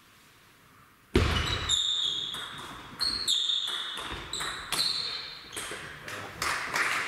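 Table tennis rally: a plastic ball clicking back and forth off bats and table in quick succession, starting suddenly about a second in. Each hit gives a short high-pitched ping, about two hits a second.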